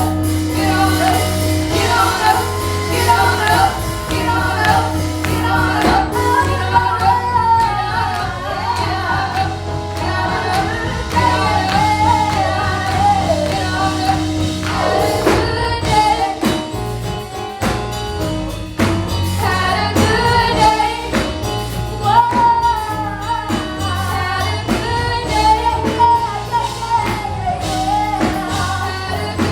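Gospel song with a woman singing lead over a steady bass line and percussion, with sharp strikes that may be tambourine.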